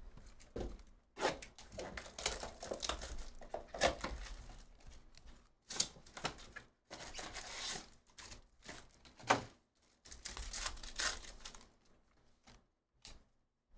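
Packaging of a trading-card box being torn open and handled: cardboard tearing and plastic wrap and foil crinkling in irregular bursts, with short pauses between them.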